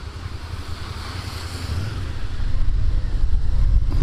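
Wind rumbling on a helmet-mounted microphone while riding a motorcycle on a wet road, with a hiss of wet tarmac under the tyres, growing louder in the second half.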